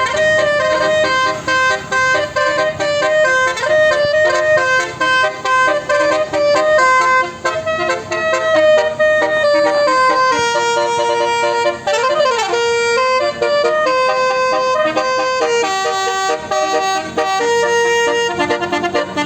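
Bus telolet basuri horn, a multi-tone musical air horn, playing a melody of held notes that step from pitch to pitch, with a brief pitch swoop about twelve seconds in.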